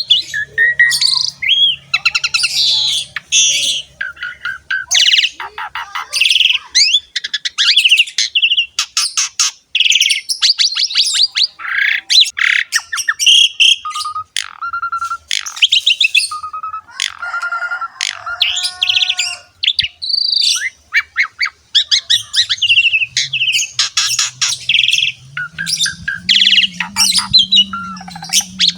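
Pied starling (jalak suren) singing a long, varied song of chattering, fast rattling trills and clear whistled notes, almost without a pause.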